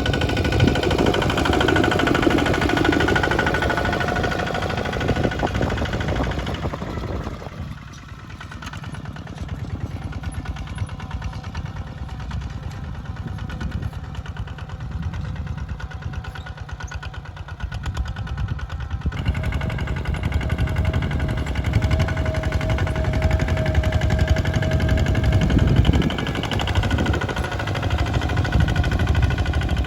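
Bulldozer's diesel engine running with a steady rapid knock. It drops quieter about a third of the way in and picks up again about two-thirds through, when a faint steady whine joins it for a few seconds.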